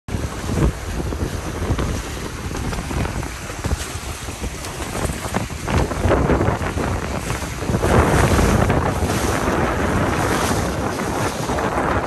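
Wind buffeting the microphone over the rush and splash of water along the hulls of a Dragonfly 800 trimaran sailing fast in a gust. The rush grows louder about eight seconds in, as the gust picks the boat's speed up.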